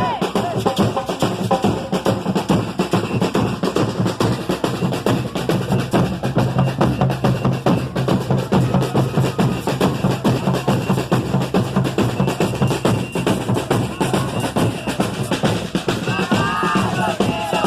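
Samba band playing a fast, dense drum groove, with deep bass drum and snare strokes over a steady low bass line.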